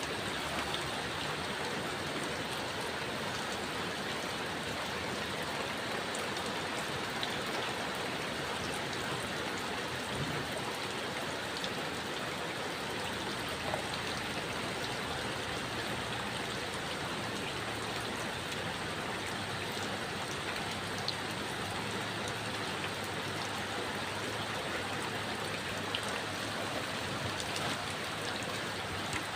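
Steady heavy rain falling, an even hiss with a few sharper drop ticks now and then.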